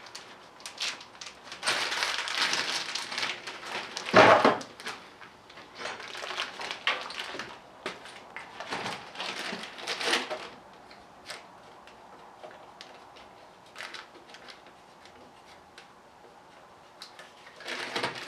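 Handling noise while bagging removed engine bolts: rustling of a plastic bag and small metal bolts clinking, with one sharp knock about four seconds in, then only scattered light clicks.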